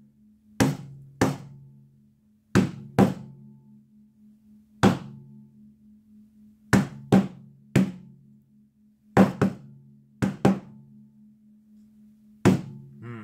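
Tack hammer striking a cotton canvas panel of wet acrylic paint on a tabletop: about a dozen sharp knocks at uneven intervals, often in quick pairs. A low, steady ringing hangs between the blows, from wires hung nearby that ring with each hit.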